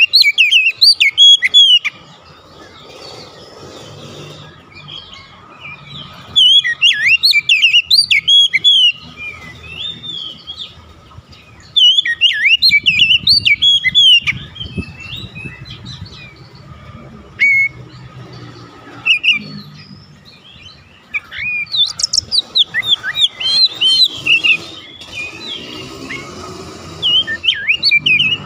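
Caged male Oriental magpie-robin singing loudly in bursts of a few seconds each, quick varied whistles and chattering notes with short gaps between. This is the full outpouring of its learned song, typical of a magpie-robin roused by a rival's call.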